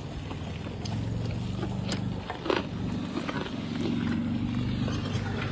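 An engine running steadily at a low, even hum, with a few short clicks and knocks over it.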